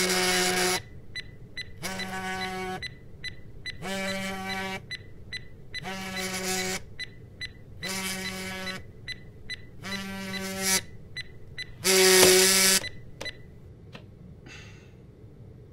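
A mobile phone vibrating on a wooden chair seat: seven buzzes about two seconds apart, the last one the loudest, stopping about three-quarters of the way through, when a hand comes down on the phone.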